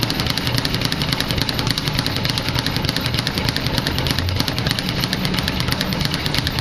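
Speed bag punched nonstop with alternating fists, rattling against its rebound board in a fast, even rhythm.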